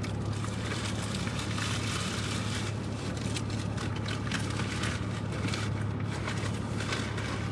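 Steady low hum of an idling car engine, with no other distinct events.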